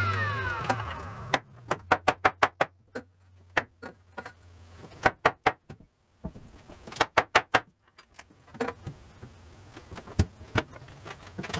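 A power tool's motor winding down with a falling whine, then groups of sharp knocks, several a second, coming in short bursts.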